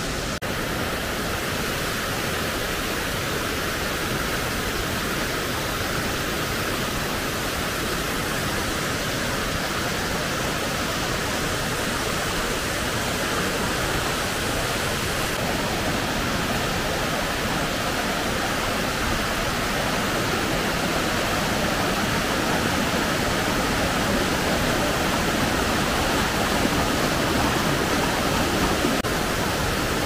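Steady rush of a waterfall, water pouring down wide travertine cascades and over limestone terraces.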